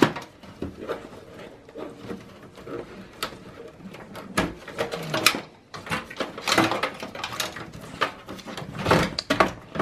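Gloved hands handling a desktop PC's power-supply cable bundle inside the sheet-metal case: scattered clicks and knocks from the plastic connectors, with brief rustling and scraping of wires and gloves against the chassis.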